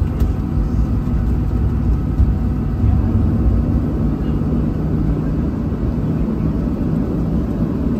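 Steady low rumble inside the cabin of a Boeing 737-700 taxiing in after landing: engine noise at idle mixed with the airframe rolling on the taxiway.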